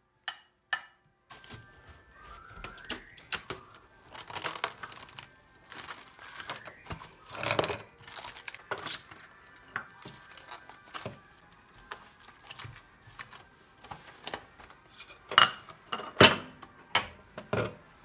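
Plastic cling film crinkling and tearing as it is pulled from the roll and stretched over a glass bowl, with a spoon clinking and scraping against the bowl near the start. Several sharp, loud crackles of the film come near the end.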